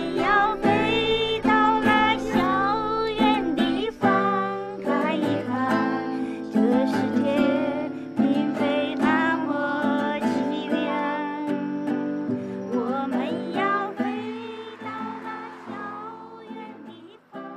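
A song playing: a singing voice over instrumental backing, which fades down over the last few seconds.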